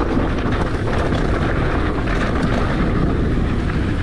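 Polygon Siskiu T8 mountain bike being ridden on a dirt trail: steady wind buffeting on the action camera's microphone, with tyre noise and the light clatter of the bike over the ground.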